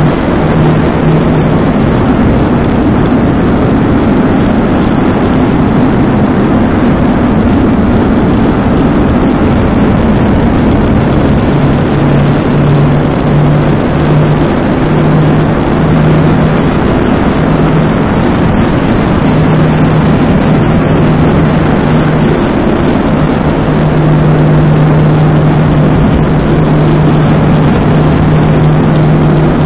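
A motorcycle riding along a road, picked up by a mirror-mounted camera's small microphone: a loud, steady rush of wind and road noise with the engine's low hum underneath. The hum comes and goes, running strongest through the second half.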